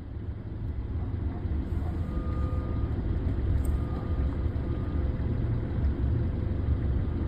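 Steady low rumble inside a car's cabin: road and engine noise heard from the back seat.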